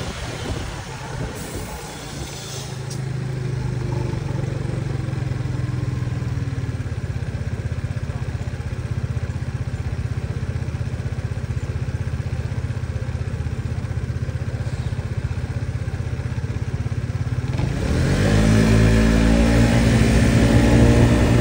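Motor scooter engine slowing to a stop, then idling with a steady low hum. About three-quarters of the way through it revs up and climbs in pitch as the scooter pulls away, with wind rumbling on the microphone.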